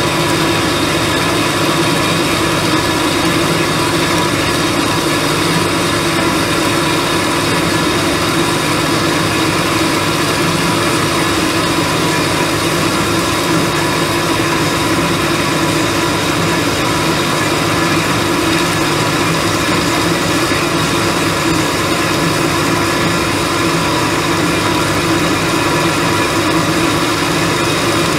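Behringer HBP 360 A automatic bandsaw running steadily, a constant machine hum with a higher whine that does not change.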